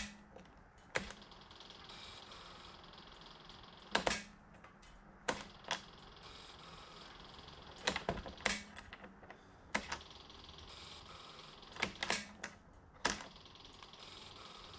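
Scattered sharp clicks and knocks, about a dozen spread irregularly over several seconds, some in quick pairs, over a faint steady hiss.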